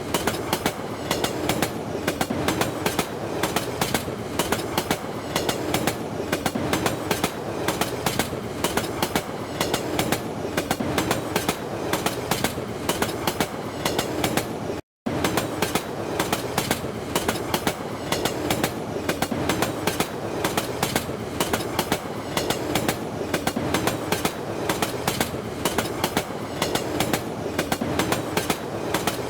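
Indian train running, its wheels clattering over the rail joints in a fast, steady clickety-clack over a constant rumble. The sound cuts out for a split second about halfway through.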